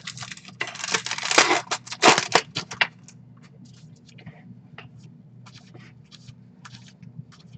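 Trading cards and their packaging being handled: dense rustling and crinkling for about the first three seconds, then scattered light flicks as cards are slid one by one through the stack.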